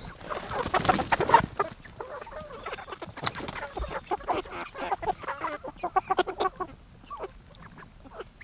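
A flock of laying hens clucking as they crowd in to peck at tossed cherry tomatoes. The calls are densest and loudest in the first couple of seconds, then come more sparsely.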